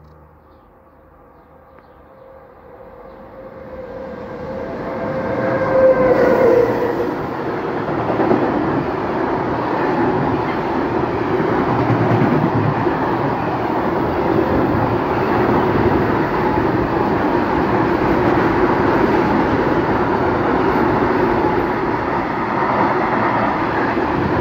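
Freight train passing close by on the main line. It grows from faint to loud over the first six seconds, with a steady tone that drops in pitch as the locomotive goes by. Then comes the continuous rolling noise of loaded flat wagons and hopper wagons running past.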